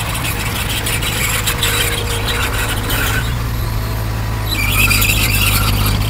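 Komatsu D20P bulldozer's diesel engine running steadily under a high squeal and fast clatter from its steel tracks and running gear. The squeal grows louder in the last second and a half.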